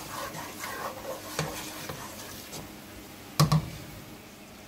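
Wooden spoon stirring curry powder frying in hot oil in a pot: light scrapes and clicks over a faint sizzle. A short, louder thump comes about three and a half seconds in.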